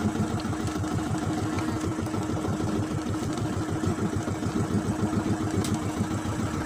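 Fishing boat's engine running steadily with a rapid, even chug.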